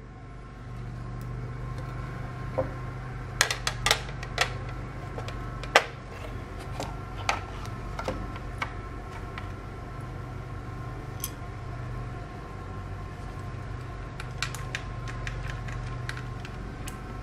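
Small metal cooler-mounting parts handled and set on a motherboard: scattered light clicks and taps, a few close together, with the sharpest click about six seconds in, over a steady low hum.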